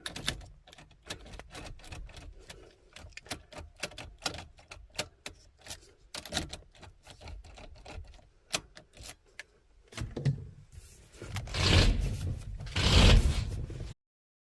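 Irregular run of sharp clicks from a car key being worked in a faulty ignition lock, the sound of a worn Volkswagen ignition switch. Near the end come two louder rushing bursts about a second apart.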